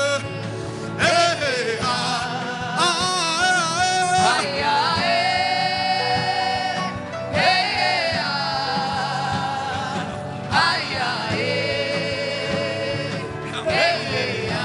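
Gospel worship music: a voice sings long held notes with vibrato and no clear words, over a steady low accompaniment.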